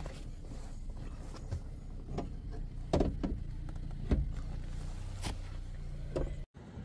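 Unbolted van seat being shifted forward on its metal base, with several sharp knocks and clunks spread over a few seconds, over a steady low hum.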